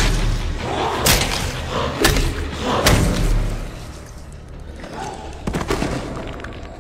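Heavy thuds of blows landing in a fight, four of them about a second apart, followed by a quieter stretch with a few faint knocks.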